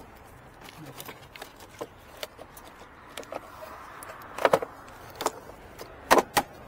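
Hard plastic clicks and knocks as the plastic battery cover carrying the engine computer (PCM) is worked back into place, with a short scrape before the loudest knocks about four and a half seconds in and again near the end.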